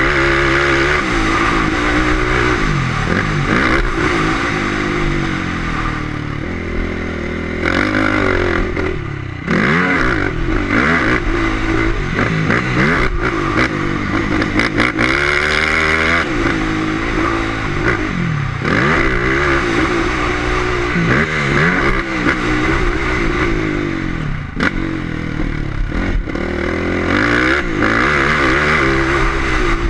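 Motocross bike engine revving hard around a dirt track, repeatedly climbing in pitch through the gears and dropping off again, with a constant rush of wind noise.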